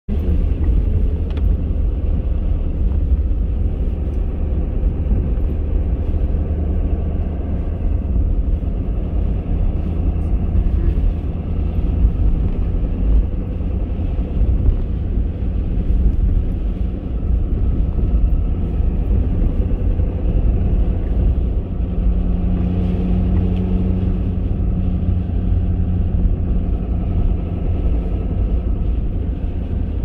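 Truck driving on a snow-covered road, its engine and tyre noise heard from inside the cab as a steady low rumble.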